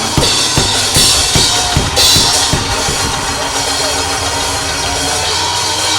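Live church band music: a drum kit beating a quick, steady rhythm of about two to three hits a second, with a cymbal wash about a second in, over sustained instrument tones.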